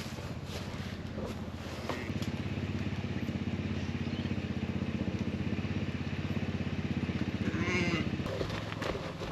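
A small engine running steadily with a fast even beat, a little louder from about two seconds in; near the end a sheep bleats once.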